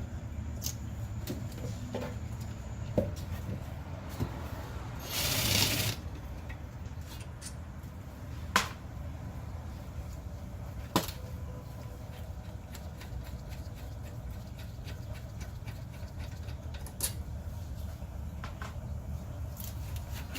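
Scattered sharp metal clinks and taps from hand tools and brake parts being handled during rear brake caliper and pad removal, over a steady low hum. One short hiss is heard about five seconds in.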